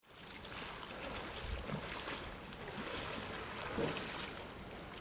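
Steady rushing of a wide mountain stream flowing over rocks.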